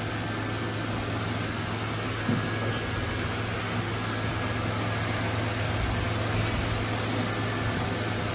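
Haas CNC mill running a 3D-milling program on billet aluminium: a steady high spindle whine and machine hum over an even hiss of coolant, with a small knock about two seconds in.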